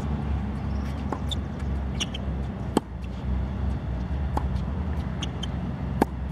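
Tennis rally: racket strikes on the ball about every one and a half seconds, the near player's hits louder and sharper in turn with fainter hits from across the net. Under them is a steady low rumble, with short high squeaks in between.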